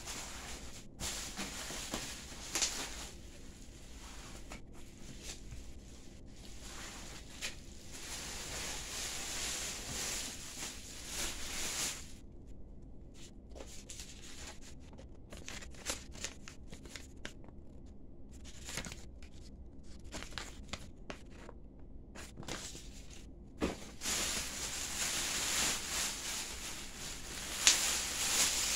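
Plastic bag and bubble-wrap packaging crinkling and rustling as it is handled, with scattered clicks and knocks. It grows louder in the last few seconds.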